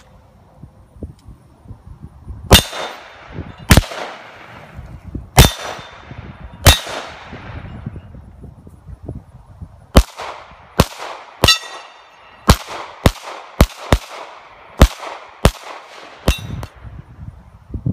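Handgun shots fired while moving, about fourteen in all: four slow, spaced shots, then a quicker string of shots starting about ten seconds in. Several shots are followed by a short metallic ring.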